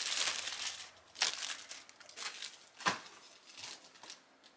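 Packaging crinkling as an item is unwrapped: a dense stretch of crinkling for about the first second, then a few separate crackles.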